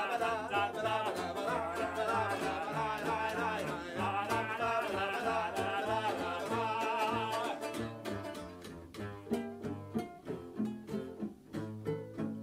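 Two voices singing over a strummed banjo ukulele and a cello. About eight seconds in the singing stops, and the banjo ukulele and cello go on alone with separate plucked notes.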